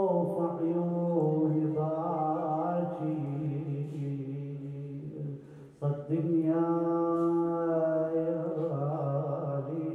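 A man chanting an Arabic Muharram elegy solo and unaccompanied, with long held notes that bend and ornament in pitch. He breaks briefly for breath just before six seconds in, then comes back on a strong held note.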